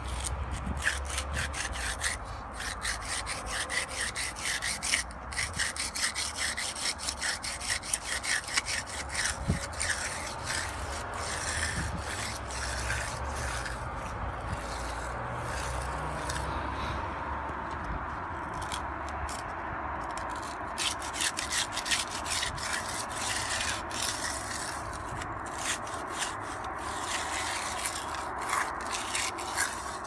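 3-inch steel hand edger scraping along the edge of fresh wet concrete against the wooden 2x4 form, in many short gritty strokes as it rounds off the slab's edge.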